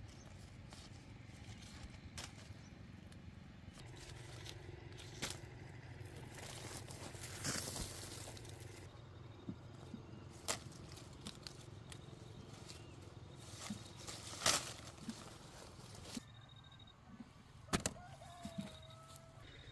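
Sapodillas being picked by hand: leaves and branches rustling, with a few sharp snaps of fruit stems breaking, spaced a couple of seconds apart over a low steady rumble.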